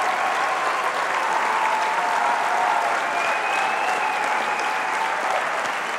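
A large auditorium audience applauding steadily, dense clapping with a few faint held cheers above it.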